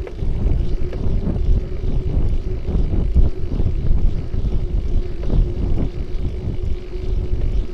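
Bicycle ride heard from a bike-mounted action camera: wind buffeting the microphone and road rumble, with a steady hum and scattered short knocks and rattles as the bike goes over the road surface.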